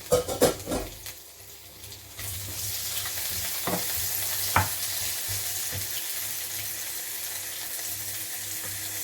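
Chopped boiled chicken breast going into a pan of hot olive oil, a few knocks in the first second, then frying with a steady sizzle from about two seconds in. A couple of single knocks come from a utensil stirring the pan.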